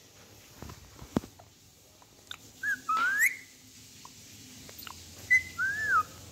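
Indian ringneck parakeet whistling: a short whistle and then a rising whistle about halfway through, followed by a brief steady note and a rising-and-falling whistle near the end. A single sharp click sounds about a second in.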